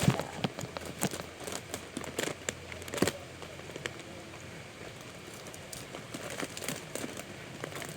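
Plastic wrapping being crinkled and pulled off by hand: irregular crackling with a few sharper clicks, loudest near the start and about three seconds in.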